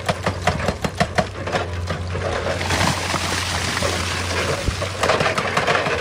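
Excavator diesel engine running with a steady low drone while rocks and stones knock and clatter, with a rushing, sliding stretch of loose rock in the middle.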